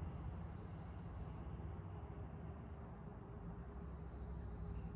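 A high, steady trilling call, held about a second and a half, sounds twice at the same pitch over a steady low background noise.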